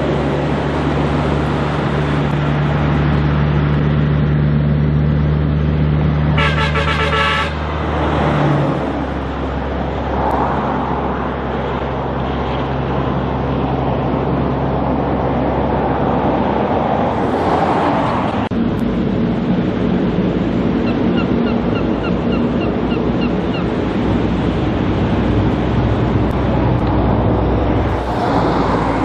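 Heavy diesel trucks and cars passing on a highway, an engine's steady note strong for the first eight seconds or so before fading. A truck horn gives a short blast about six and a half seconds in.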